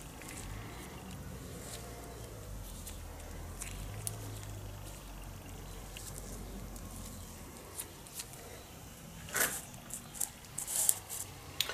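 Faint squishing and rustling of nitrile-gloved fingers pressing grease into a tapered roller bearing, with a few louder short handling sounds near the end.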